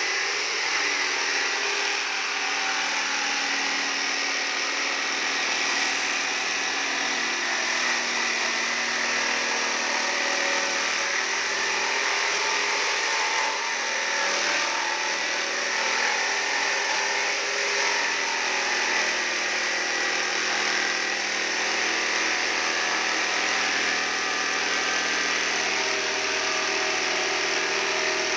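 Corded electric jigsaw running steadily, its blade cutting lengthwise through a wooden door panel.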